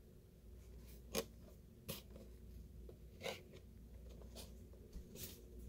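Faint rubbing and about four short sharp clicks as a boxed action figure's cardboard-and-plastic packaging is handled and turned over.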